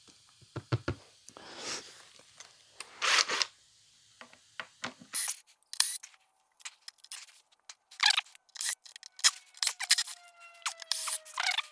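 Irregular scraping, rubbing and clicking of hands and a screwdriver working at a subwoofer's wooden cabinet and exposed woofer, as the speaker is freed from the box. The sounds come thicker from about halfway. Near the end a thin squeaky tone sits under them, drifting slightly down in pitch.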